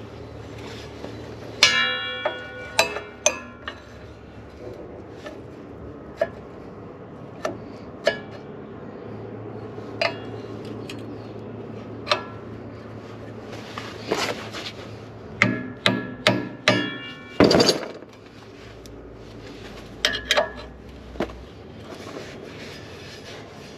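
Hand tools clinking and clanking against the steel parts of a planter row unit as its bolts are tightened with a wrench. The strikes are scattered and sharp, with short metallic ringing, and come in small clusters about two seconds in, around the middle to later part, and again near the end.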